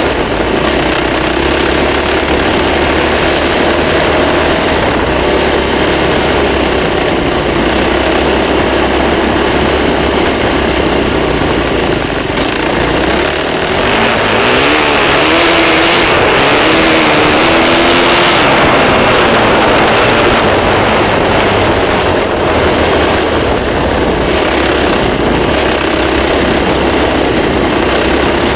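Off-road motorbike engine running under a loud, steady rush of noise. About halfway through, the engine pitch rises and wavers, with the rush growing louder for a few seconds before settling again.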